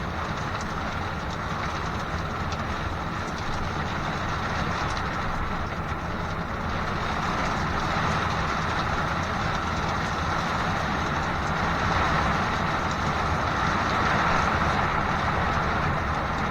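Heavy rain pouring down, heard from indoors as a steady, grainy hiss and patter that swells a little from about halfway through.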